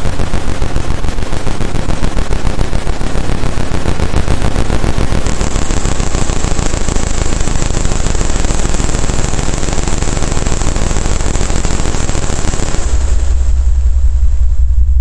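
Roland AIRA Compact S-1 synthesizer playing a harsh, dense noise drone made of rapid stuttering pulses. A thin high whine joins about five seconds in. Near the end the noise drops away, leaving a deep bass rumble.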